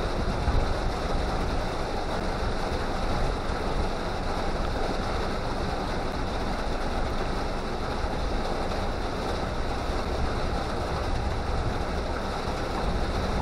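Steady rush of wind and water aboard a pontoon boat under way, with wind buffeting the microphone.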